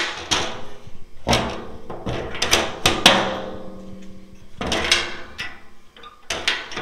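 Door of an aluminum diamond-plate dog box being worked by hand: a series of metallic knocks and clanks from the door and its latch, each followed by the thin aluminum sheet ringing.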